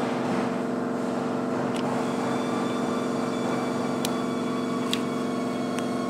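A steady machine hum at one fixed pitch, like a motor running, holding an even level throughout. A few light metallic clicks come over it from the brake shoe parts being handled.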